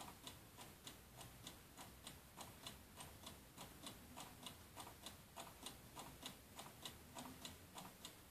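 Faint, steady ticking, about three evenly spaced ticks a second.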